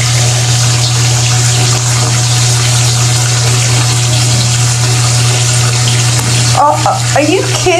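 Water running from a tap into a bathtub: a steady rushing hiss with a low hum under it. About seven seconds in, a voice with rising and falling pitch joins it.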